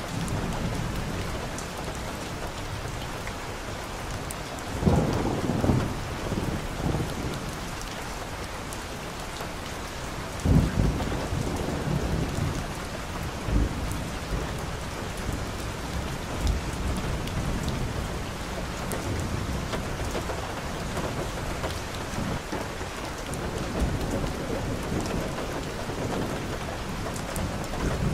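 Steady rain falling on a wet street and leaves, with several short low rumbles rising out of it, the loudest about five and ten seconds in.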